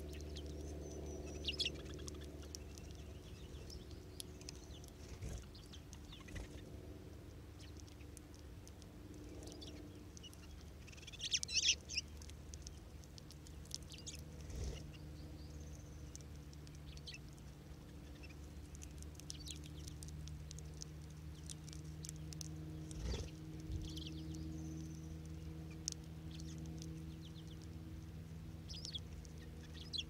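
Cassin's finches feeding on the ground, giving short, scattered high chirps, with fine clicks of seed being pecked. The loudest cluster of chirps comes about eleven seconds in. A low steady hum runs underneath.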